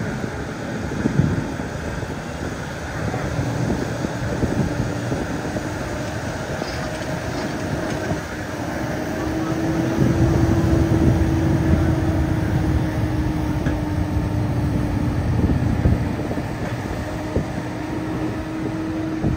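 Farm tractors' diesel engines running under load while pulling tillage cultivators through the soil: a steady drone with a held engine note, growing louder about halfway through.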